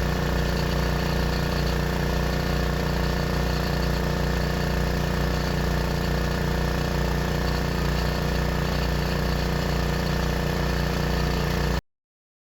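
Predator 212 single-cylinder gas engine on a homemade well-drilling rig, running at a steady speed. It stops abruptly near the end.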